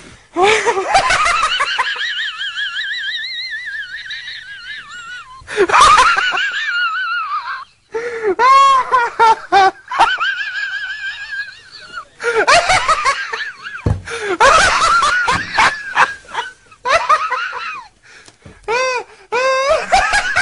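A man in a helpless fit of laughter: long runs of high-pitched laughing with a rapidly wavering pitch, broken by short pauses for breath.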